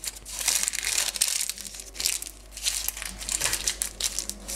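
Baking paper crinkling irregularly as hands roll it tight around a sausage-shaped filling and twist its ends.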